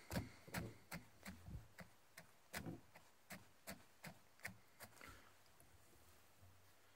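Faint, quick strokes of a comb drawn through the synthetic flash fibres of a fly tied in a vise, about two to three strokes a second, stopping about five seconds in.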